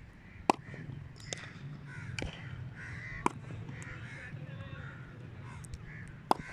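Crows cawing over and over, cut by several sharp cracks of a cricket bat striking the ball during net practice.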